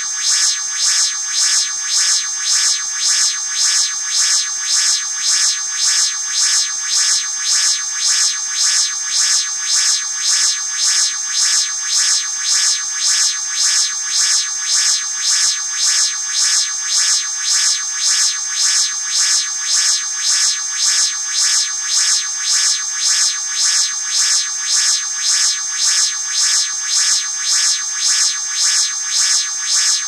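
Synthesized spaceship engine-room ambience: a steady electronic hum, mostly high-pitched and with little bass, carrying a constant high whine and throbbing in an even, regular pulse.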